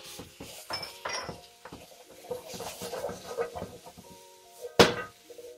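Background music over the clatter of stir-frying in a wok: a utensil scraping and knocking against the metal pan, with one sharp loud clank near the end.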